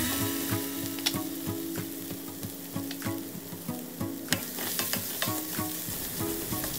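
Pounded chilli and garlic sizzling in hot oil in a stainless steel wok, being fried until fragrant, while a wooden spatula stirs and scrapes against the pan about two or three times a second.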